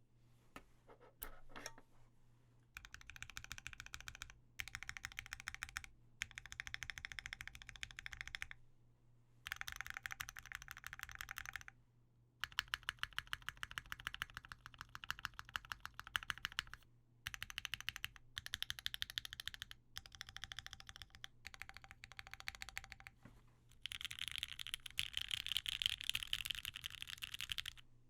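Typing on a Leaf65 mechanical keyboard with lubed OP Black switches, an FR4 plate and GMK ABS keycaps: fast runs of keystrokes in bursts of a few seconds, broken by short pauses, with only a few scattered keystrokes about a second in.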